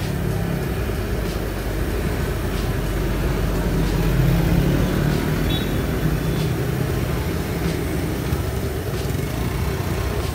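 Road traffic running past, a steady engine rumble that swells briefly about four seconds in as a vehicle goes by.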